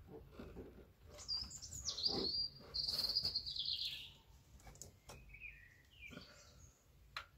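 A bird singing: a high chirping phrase starting about a second in, ending in a fast trill that falls in pitch, then a shorter, lower call a couple of seconds later. A faint click comes near the end.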